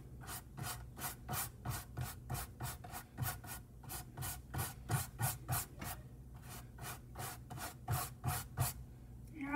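A paintbrush rubbing back and forth on a canvas in quick, repeated strokes, about three a second.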